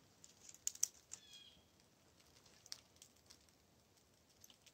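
Faint crackling and snapping of dry twigs and a small kindling fire, with a couple of sharp snaps a little under a second in.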